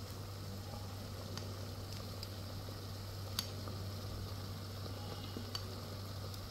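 Water boiling in a steel steamer on a gas stove, a steady low hum and hiss. A few faint clinks of a steel ladle against the steel steaming cups as dhokla batter is spooned in, the clearest about three and a half seconds in.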